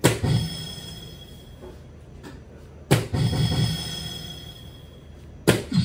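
Three darts hitting an electronic soft-tip dartboard, about two and a half seconds apart, each a sharp hit followed by the board's short electronic scoring sound. Faint background music underneath.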